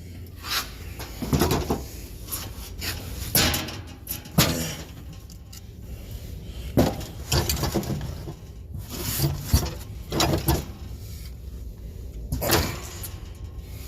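A series of irregular clunks and knocks from parts being handled and set down, over a steady low hum.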